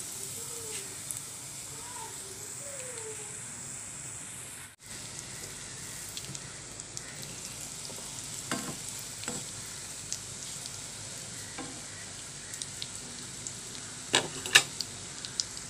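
Crumb-coated banana-flower cutlets shallow-frying in hot coconut oil in a pan: a steady sizzle, cut off briefly about five seconds in. A spatula turning the cutlets knocks against the pan a few times, the loudest knocks near the end.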